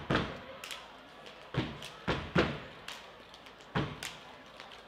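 Stepping routine: sharp stomps, claps and body slaps in an uneven rhythm, with about seven strong strikes and lighter taps between them.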